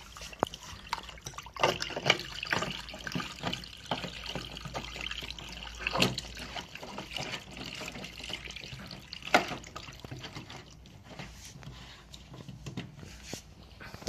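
Trapped water running and splashing out of a washing machine's opened drain-pump filter, with scattered sharp splashes and knocks, thinning out over the last few seconds. It is the water the machine could not pump out itself, the sign of its F05 drain fault.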